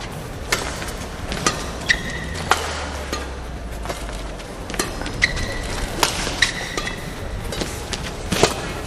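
Badminton rally: rackets striking a shuttlecock in sharp cracks about once every half second to a second, with short high squeaks of court shoes on the floor between shots.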